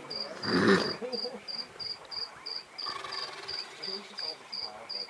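An insect, likely a cricket, chirping steadily at a high pitch, about three chirps a second. About half a second in comes a single loud, short, noisy rush lasting around half a second, and faint murmuring voices sit underneath.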